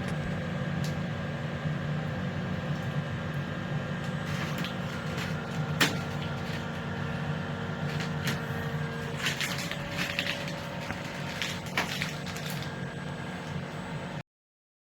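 Steady low workshop hum with scattered light clicks and knocks of objects being handled, one sharper knock about six seconds in; the sound cuts off shortly before the end.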